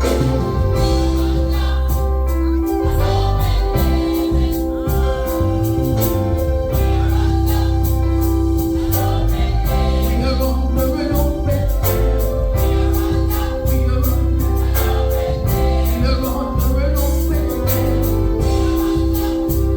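Gospel song with singing and choir voices over held keyboard chords, a heavy bass and steady percussion ticking on the beat.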